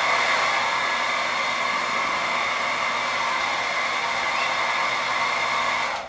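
Hair dryer running steadily as part of an 18-amp test load, a constant whooshing hiss from its fan. It is switched off at the very end and the noise dies away.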